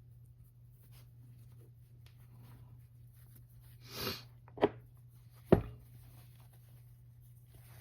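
Handling of a sand-cast copper piece and its velvet pouch: a brief rustle, then two sharp knocks a little under a second apart, over a steady low hum.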